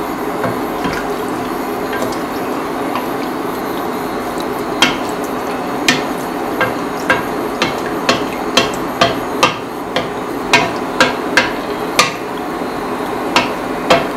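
Pot of rice, tomatoes and ginger in water cooking on the stove: a steady hiss with sharp pops and clicks, few at first, then one or two a second from about five seconds in.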